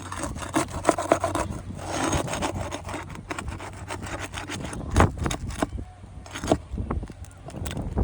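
Irregular scraping and rubbing with scattered clicks and knocks from roof repair work, with a sharper knock about five seconds in.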